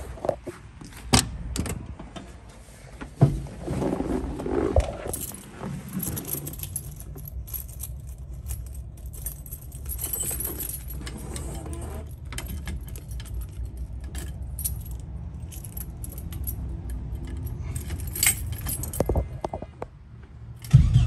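Keys jangling with scattered clicks and knocks of handling as the bus is readied to start. Right at the end the Subaru engine in the 1971 VW Type 2 camper starts with a sudden loud low rumble.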